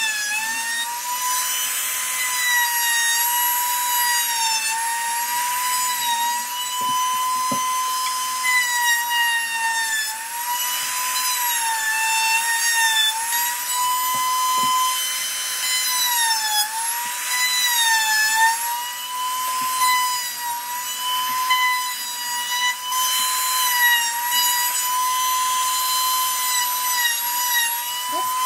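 Handheld router running continuously and cutting wood: a steady high motor whine whose pitch sags briefly several times as the bit takes load, with hissy cutting noise over it.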